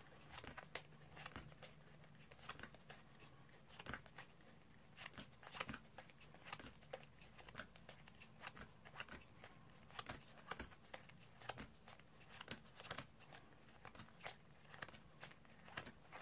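Playing cards being pushed off a deck one at a time and dropped onto a cloth card mat: faint, irregular soft snaps about once or twice a second, over a low steady hum.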